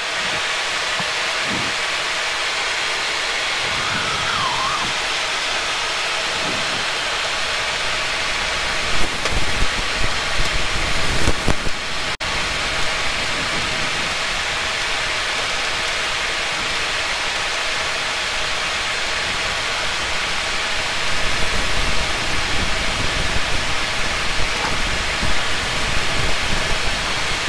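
Steady rushing cabin noise in a Boeing 737-800 cockpit as the airliner rolls along the runway after landing, with a low rumble and bumps from the wheels on the runway surface. The bumping picks up about nine seconds in and again over the last several seconds.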